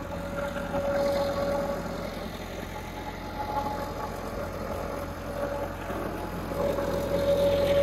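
Massey Ferguson 385 tractor's four-cylinder diesel engine running steadily as it pulls a garlic digger through the field, growing louder about a second in and again near the end.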